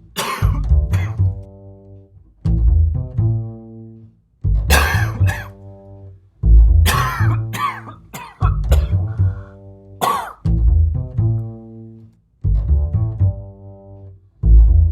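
Low pizzicato double bass notes, a plucked phrase about every two seconds. Several loud coughs break in over them: one right at the start, a cluster in the middle, and one about two-thirds through.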